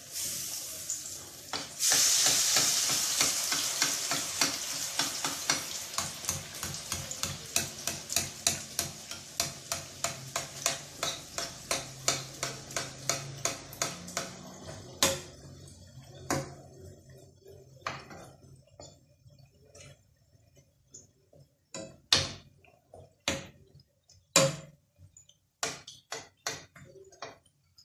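Hot oil sizzling around rghaif (Moroccan layered flatbreads) in a frying pan. It surges about two seconds in as the breads are turned, with a rapid patter of crackles. It then dies away over the next dozen seconds, leaving only scattered sharp clicks of the spoon and popping oil.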